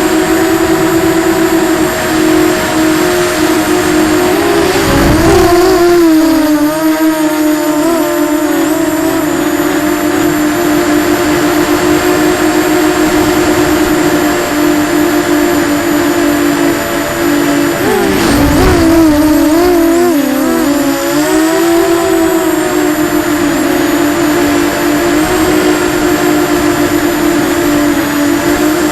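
Eachine Falcon 250 FPV quadcopter's electric motors and propellers whining steadily in flight. The pitch wobbles and drops twice, about five seconds in and again near two-thirds of the way through, with a brief rush of air noise as the throttle changes.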